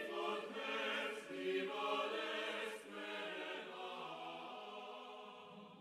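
Background music of a choir singing long held chords, fading out toward the end.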